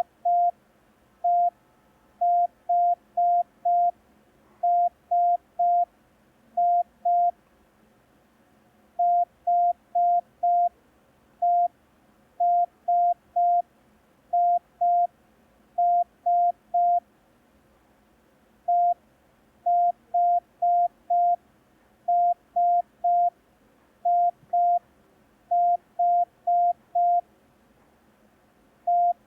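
Morse code practice tones: short dots of one steady pitch, sent in clusters of one to four that spell letters built only of dots (E, I, S, H), with longer gaps between letters and groups. This is a receiving exercise of five-letter code groups such as EISHE and IHIEH.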